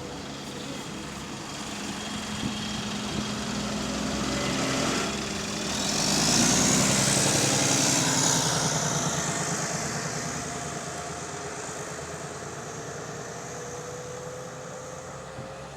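Diesel bus engine heard from on board, working harder and building to its loudest about six seconds in before easing back. The bus has a small exhaust leak.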